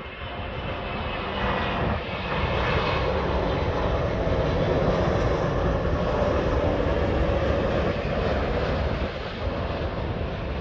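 Jet engine noise of an Emirates Airbus A380 landing: a heavy, even rumble that swells about two seconds in, holds steady, and eases slightly near the end.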